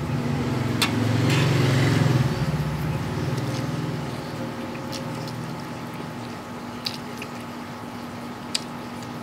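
Close-up eating sounds: a forkful of instant noodles slurped in and chewed, over a low rumble that swells and fades in the first few seconds. A few sharp clicks follow, the fork on the stainless steel tray.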